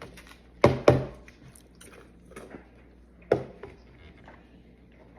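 Wet mouth sounds of someone eating barbecue: a quick pair of smacks about a second in and another a couple of seconds later, with quieter chewing noises between.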